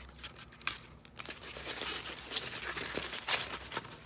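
Packing material crinkling and rustling in irregular bursts as a boxed bobblehead is unwrapped by hand.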